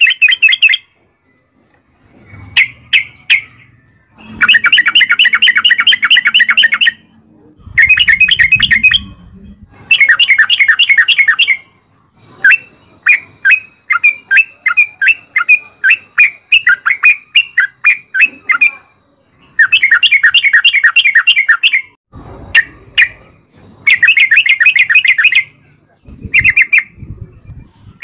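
Yellow-vented bulbul (trucukan) singing a long rolling song: loud bursts of fast, repeated chattering notes, each burst lasting one to three seconds, coming one after another with short pauses between.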